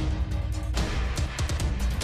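Background music with heavy bass and a fast percussive beat.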